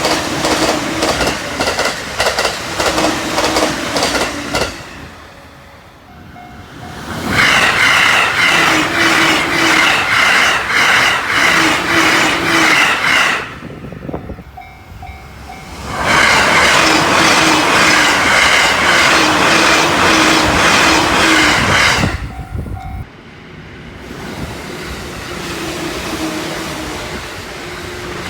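Joban Line trains passing at high speed, over 120 km/h, one after another: the wheels clatter in a fast, even rhythm over the rail joints. Three loud passes are separated by short quieter gaps with sudden cuts, and another train begins to approach near the end.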